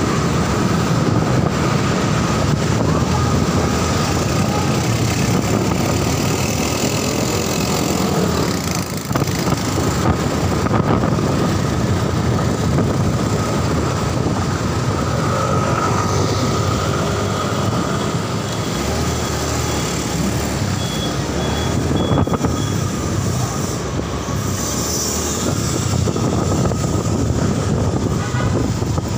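Motorcycle on the move in city traffic: steady engine and road noise.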